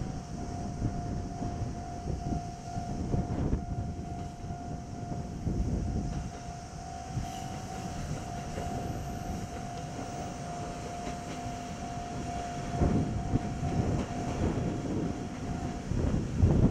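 Railway level-crossing warning bell ringing its repeated electronic ding, stopping shortly before the end; wind rumbles on the microphone underneath.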